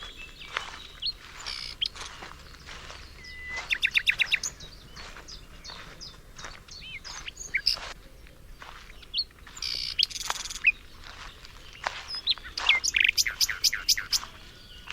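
Several songbirds chirping and calling, with rapid trills of repeated notes about four seconds in and again near the end.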